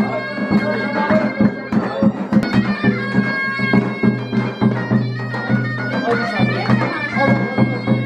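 Traditional folk music: a reedy wind instrument plays a melody over a steady drone, with frequent drum beats.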